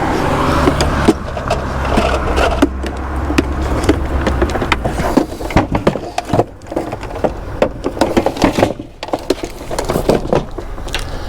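Metal hand tools and scrap steel being rummaged and handled, with many short clinks and knocks. A vehicle engine runs with a steady low hum for the first few seconds and then fades out.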